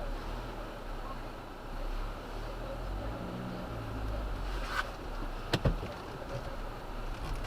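Car driving on a rough off-road track: a steady low rumble of engine and tyres, with two sharp knocks a little after the middle.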